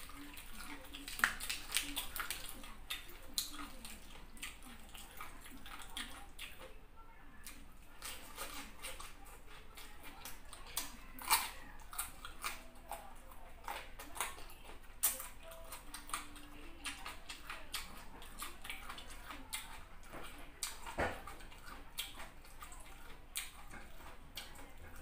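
Close-miked eating sounds of a person eating fufu and chicken in soup by hand: wet chewing and lip smacks, with many small sharp clicks.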